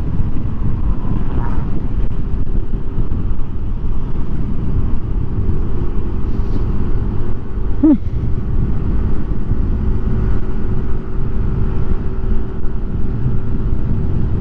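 Motorcycle riding at about 80 km/h, heard through a lavalier mic inside the helmet's cheek pad: steady low wind and road rumble with the engine running underneath. A brief pitched sound about eight seconds in.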